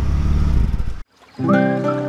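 BMW inline-six engine running through its stock, heavily muffled exhaust, heard at the tailpipe. The sound is cut off abruptly about a second in, and after a brief gap acoustic guitar music begins.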